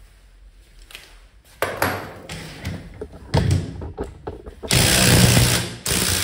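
Several loud bursts from a workshop power tool, with knocks between them; the longest burst lasts about a second near the end.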